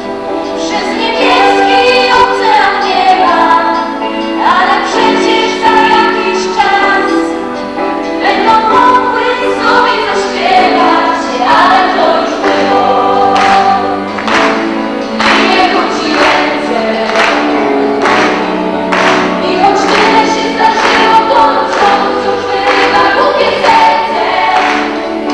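A song with several voices singing together over instrumental accompaniment; a regular beat comes in about ten seconds in.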